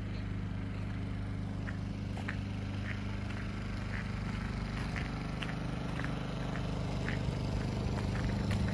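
Footsteps at a walking pace, about two a second, over a steady low hum.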